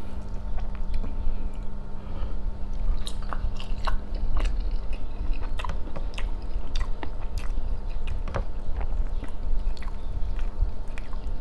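Close-miked chewing of a mouthful of roti john, a soft bread sandwich filled with meat, egg and cheese: a run of irregular wet mouth clicks and smacks over a low steady hum.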